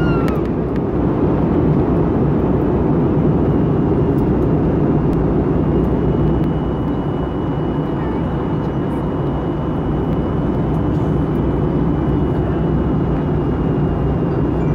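Airbus A320 cabin noise in flight: the steady, deep rushing of the jet engines and airflow heard from a window seat, with a faint high whine above it. The noise eases slightly about six seconds in.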